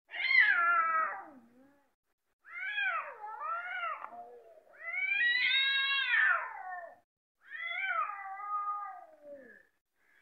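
Cats yowling at each other in a standoff before a fight: four long, drawn-out calls that waver up and down in pitch, separated by short silences.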